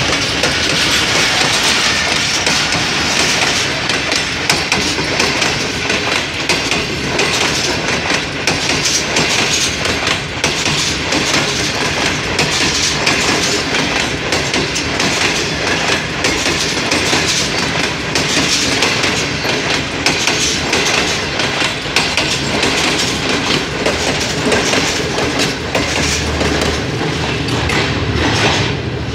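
Pakistan Railways passenger coaches rolling past at close range, their wheels clattering steadily over the rail joints, until the last coach goes by near the end.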